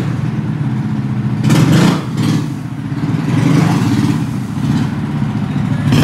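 DTV Shredder's small gas engine running while the tracked machine is manoeuvred in a garage, with a brief louder surge about one and a half seconds in.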